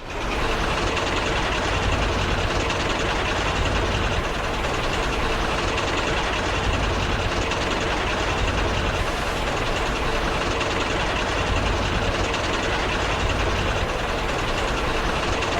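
Diesel engine running steadily at a constant speed, mostly low-pitched, with a faint steady tone above it; it comes up quickly at the start and then holds level.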